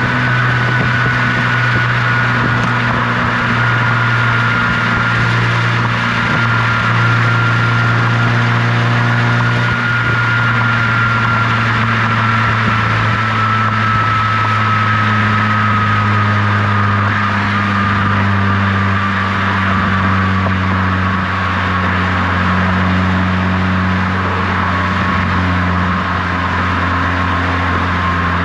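Toyota GR86's FA24 flat-four heard right at the tailpipe through a GR Performance dual exhaust while cruising on the highway. It makes a steady low drone that settles slightly lower in pitch partway through, with a thin high whine above it that slowly falls in pitch.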